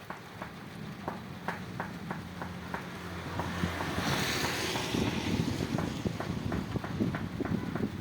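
Water dripping in rain, a scatter of sharp ticks two or three a second. A low steady hum fades out a little before halfway. Then a swell of rushing noise rises about halfway through and stays on as a rumble.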